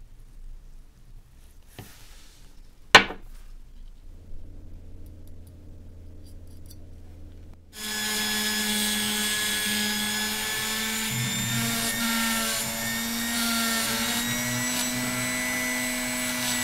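A sharp click about three seconds in. Then, from about eight seconds in, a rotary tool with a sanding drum runs steadily, grinding the face of a small brass lamp part; its whine wavers slightly in pitch as it works.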